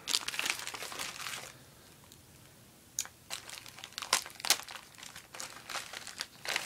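Plastic bag and paper packaging crinkling as they are handled, with a lull of about a second and a half near the start, then a run of sharp crackles.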